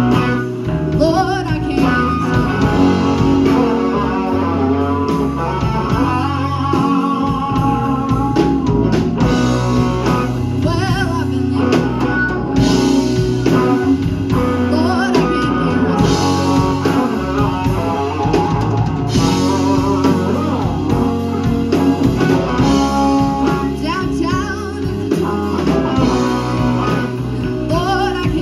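Live band playing a slow electric blues: overdriven electric guitar with bent notes over a drum kit and bass, with a woman singing.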